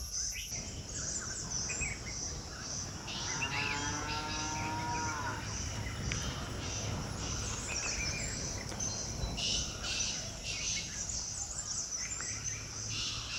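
Morning countryside sounds: a steady high trill of insects and scattered bird chirps, over low wind noise. A cow moos once, one long rising-and-falling call, about three seconds in.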